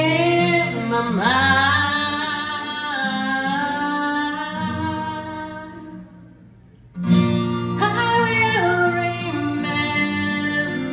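A woman singing a slow song live, with long held notes, to an acoustic guitar accompaniment. The music drops almost away for about a second a little past halfway, then the singing and guitar come back in.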